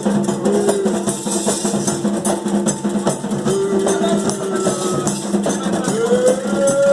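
Candomblé ritual music: drums and shaken percussion keep a dense, fast rhythm under sung chant, with held notes that slide in pitch.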